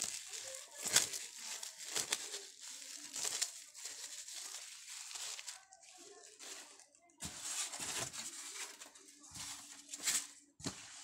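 Clear plastic bag crinkling and rustling in bursts as it is pulled off slate pieces, easing off briefly about six seconds in, then rustling again.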